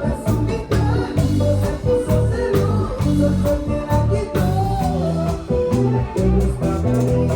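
Music with a steady beat, a strong bass line, guitar and a singing voice.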